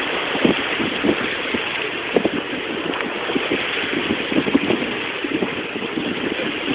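Wind and water rushing past a heeled sailboat under sail, a steady rush broken by irregular low thumps, through a mobile phone's microphone.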